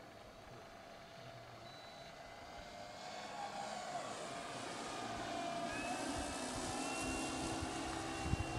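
Radio-controlled P-47 model plane's electric brushless motor and propeller whining in flight, growing steadily louder as it passes close.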